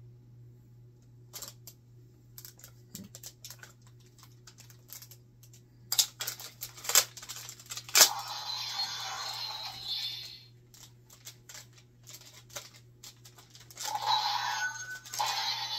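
Plastic clicks and rattles from a Kamen Rider Gaim toy weapon being handled, with three loud clicks of its parts being worked about six, seven and eight seconds in. Each is followed by a short burst of the toy's electronic sound effects, played from its small built-in speaker, the second starting about fourteen seconds in.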